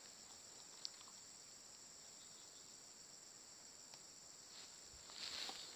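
Faint, steady high-pitched chirring of crickets, with a single sharp click a little under a second in and louder rustling near the end.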